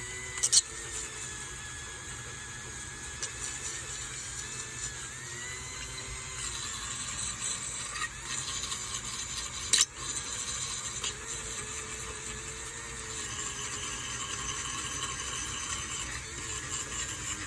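A small power tool running steadily with a faint whine that wavers slightly in pitch, brushing surface rust off an old metal toy skid steer. Two sharp knocks stand out, one just after the start and one about ten seconds in.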